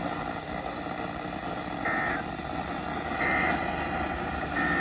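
Emergency Alert System end-of-message data bursts: three short two-tone digital squawks, evenly spaced about a second and a half apart, over steady radio static hiss. They mark the close of the broadcast weather warning.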